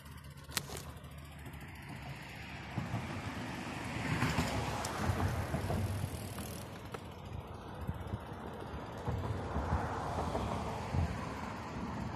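Traffic noise from passing vehicles, swelling and fading twice.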